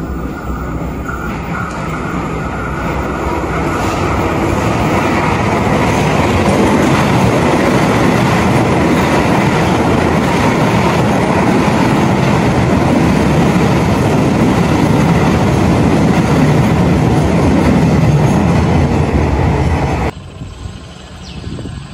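A train passing close by on the track: the rumble of the wheels on the rails grows louder over the first few seconds, holds loud, then drops off suddenly near the end.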